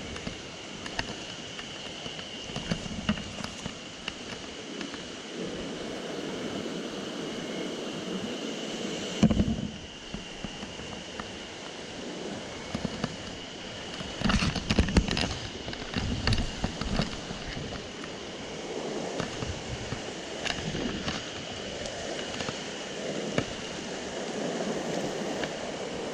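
Mountain stream water running steadily, with scattered clicks and knocks. There is a sharp knock about nine seconds in and a burst of louder knocks and rustling a few seconds later.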